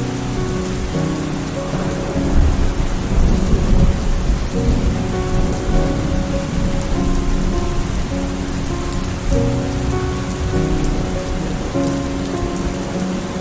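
Heavy rain pouring down in a steady dense hiss, with a low rumble of thunder swelling about two seconds in and fading a few seconds later. Soft held tones shifting pitch every second or so sound beneath the rain.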